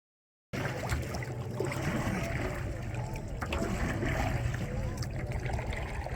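Water sloshing and trickling around a kayak on the river, over a steady low rumble, with faint distant voices; the sound cuts in abruptly about half a second in.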